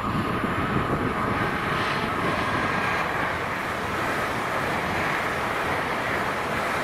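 LNER Azuma (Class 801) electric multiple unit running past at speed: a steady rush of wheels on the rails and air noise. A thin high tone sounds in the first second or so and then fades.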